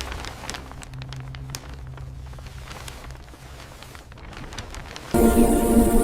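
Scattered light clicks and crackles over a steady low hum. About five seconds in, loud music with sustained tones cuts in suddenly.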